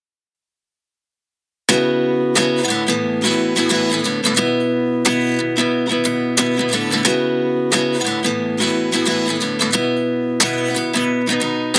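Silence for nearly two seconds, then background music starts suddenly: a strummed acoustic guitar intro with steady chords and no singing.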